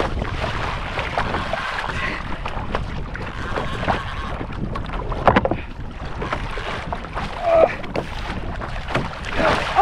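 Water rushing and slapping along a kayak hull as a hooked shark tows the kayak, with wind on the microphone. There are a few sharp knocks around the middle and a couple of brief wordless vocal sounds near the end.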